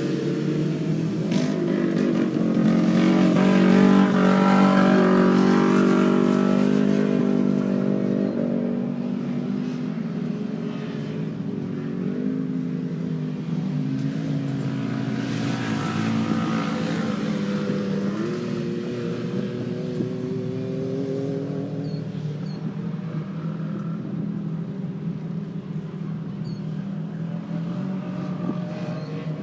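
Off-road race vehicle engines running under a caution, several engines overlapping, swelling in level a few seconds in and settling to a steadier drone with small shifts in pitch.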